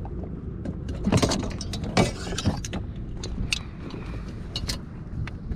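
Handling noise as a porgy is laid on a plastic bump board to be measured in a kayak: scattered clicks, knocks and rustling over a low steady rumble.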